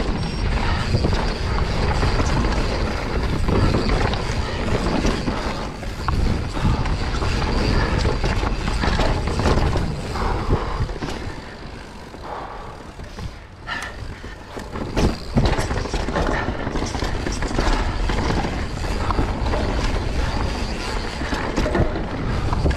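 Mountain bike descending a dirt trail: tyres rolling over dirt, roots and rocks with a steady rumble, and the bike rattling and knocking over the bumps. It goes quieter for a couple of seconds around the middle, then picks up again.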